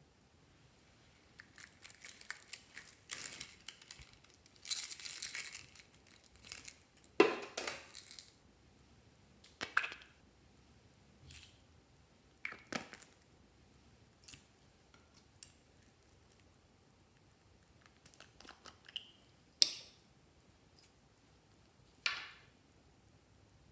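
Small plastic cosmetic pots being handled, opened and emptied into a glass baking dish: scattered clicks, taps and snaps of lids and containers, with a few short stretches of rustling and scraping. There are two sharp snaps, about 7 and 20 seconds in.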